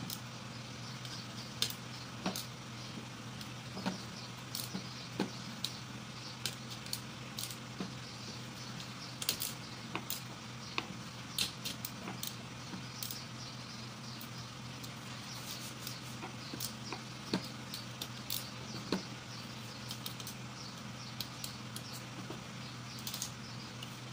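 Irregular small metal clicks and taps of bolts being fitted and tightened by hand on the crankcase cover of a Honda GX110 engine, over a steady low hum.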